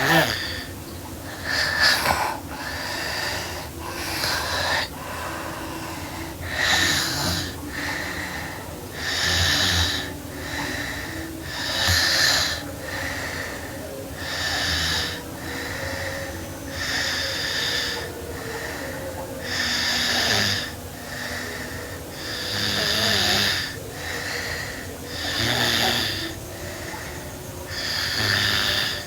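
A sleeping girl snoring, with one breathy snore about every two and a half seconds.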